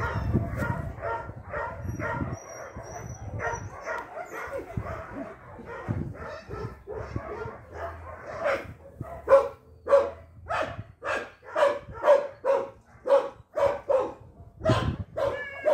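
A dog barking over and over; about halfway through the barks grow louder and settle into a steady run of about two a second.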